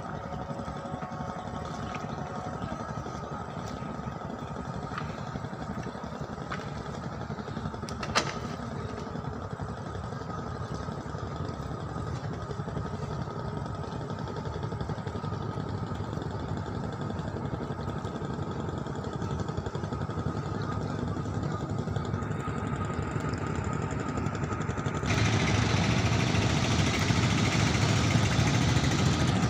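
Boat engine running steadily. There is one sharp click about eight seconds in, and the sound gets louder and fuller from about 25 seconds in.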